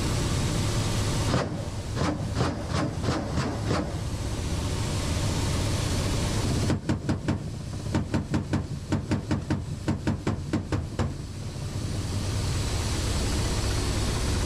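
Steady engine and rotor noise inside a Ka-52 attack helicopter's cockpit, with a strong low hum. Twice it is broken by a run of sharp, evenly spaced pops, about three a second: a shorter run of two to three seconds, then a longer one of about four seconds.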